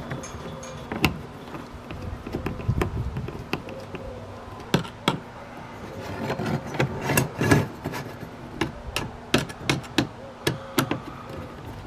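Irregular sharp clicks and knocks of a screwdriver working screws in a plastic outrigger mount on a kayak's deck, and of the stabilizer's arm rod being fitted into that mount. The knocks come thickest in the second half.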